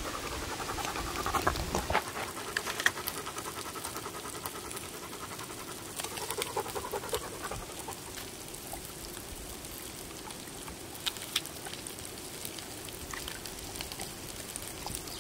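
A dog panting steadily over a low, even hiss, with a few light clicks.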